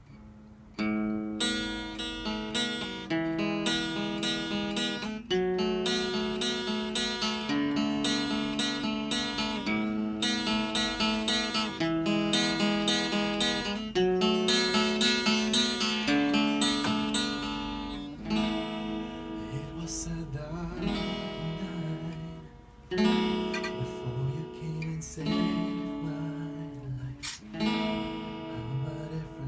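Acoustic guitar strummed in an even rhythm as the instrumental introduction to a song. The strumming starts about a second in and turns into sparser, more spaced chords about two thirds of the way through.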